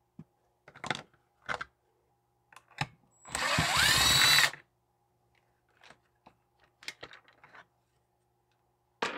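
Cordless drill-driver backing out a top-cover screw on a chainsaw. Its motor whirs for about a second, around three seconds in, rising in pitch as it spins up. Light clicks and knocks of the saw and its plastic cover being handled come before and after.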